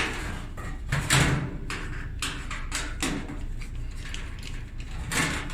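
Clothes dryer running with a steady low hum, with a string of sharp knocks and clatters over it, the loudest about a second in, like its door or panels being handled.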